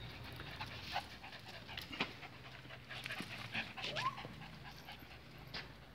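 Miniature pinscher panting, with a few sharp clicks and a short rising sound about four seconds in.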